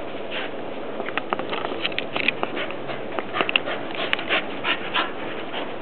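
Excited shepherd-mix dog sniffing and breathing quickly, with short breaths repeating two or three times a second. A run of sharp clicks and taps sounds through the middle as the dog moves about with its plush toy.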